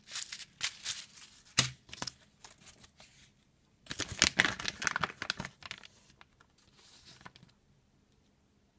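Packaging crinkling and rustling as it is handled: the desiccant sachet and the bag the new chip came in. There is a sharp click about a second and a half in, and a louder stretch of crinkling around four to five seconds in, before it dies away.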